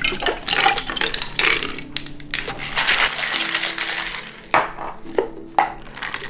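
Stainless-steel cocktail shaker being shaken hard, its contents rattling and clattering against the metal, followed by two sharp metallic clicks near the end.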